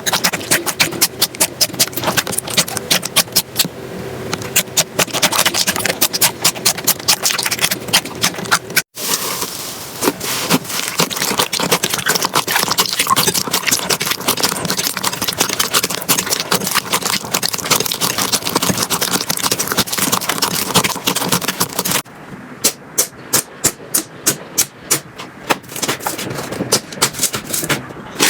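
Slime being pressed, squeezed and poked by hand, making rapid sticky clicks and crackling pops. The sound cuts to a new clip about nine seconds in and changes again around twenty-two seconds in.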